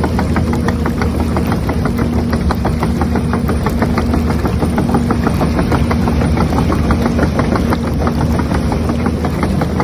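Diesel excavator engine sound running steadily with a rapid, even knock while the RC excavator drives forward on its tracks.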